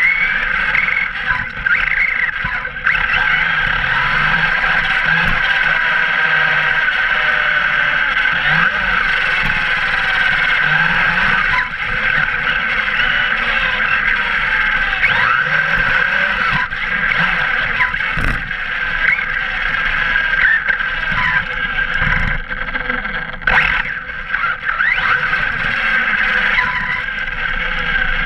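Arrma Kraton V3 RC truck driving hard on a 6S battery, heard from on board: a steady high whine from the brushless motor and drivetrain, gliding up and down as the throttle changes, over a constant rushing of tyre and road noise.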